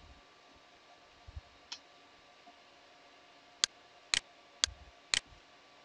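Four sharp clicks about half a second apart, after two fainter ticks, from someone operating a computer, over a faint steady hiss.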